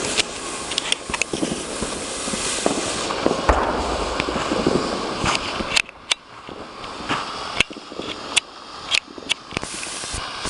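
Consumer fireworks crackling: a dense, fizzing crackle with many sharp cracks for about six seconds that cuts off suddenly, followed by a handful of separate loud pops.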